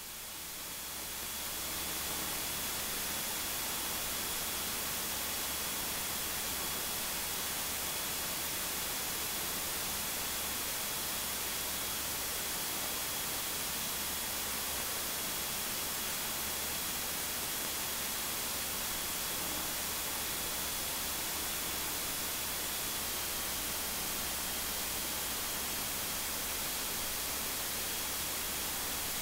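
Steady hiss from a light aircraft's intercom audio feed, recorded with one volume set too high, with a faint high whine and a low hum beneath it.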